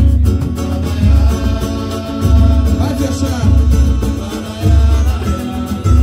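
A live samba group playing: a cavaquinho and guitar strumming over a pandeiro and hand drums, with a deep drum beat about once a second and voices singing.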